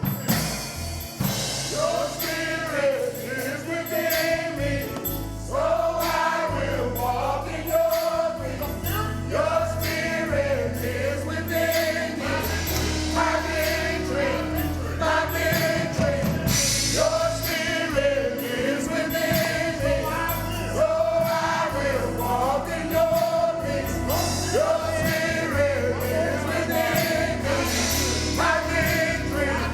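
Gospel music: a choir singing over a band with bass and a steady beat.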